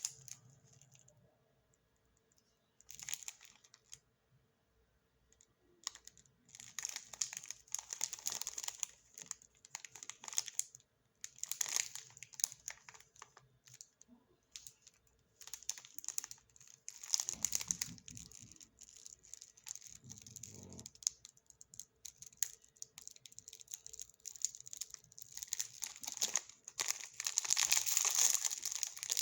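Plastic snack packaging crinkling and rustling as it is handled, in irregular bursts with short pauses, busiest and loudest near the end.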